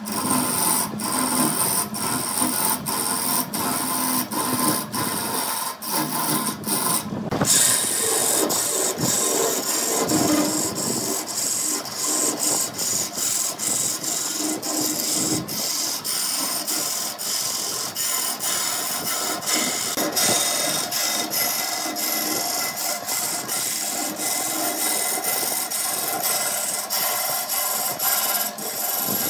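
A tool scraping and rasping against wood in repeated sharp strokes, about two a second. About seven seconds in it changes to a steadier, continuous grinding scrape.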